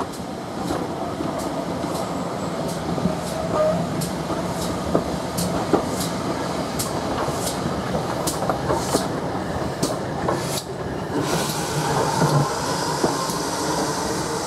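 GWR 1400-class 0-4-2T tank engine and its autocoach running past: the wheels click steadily over the rail joints, about two clicks a second, over a running rumble. A hiss of steam joins in for the last few seconds.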